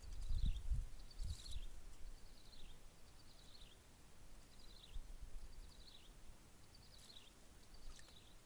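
A bird calling over and over, a short high note falling in pitch, repeated a little more than once a second. Low rumbling thumps in the first second and a half.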